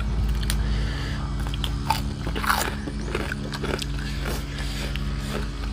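People chewing and biting into papaya salad and grilled shrimp close to the microphone, with scattered short crunches and clicks.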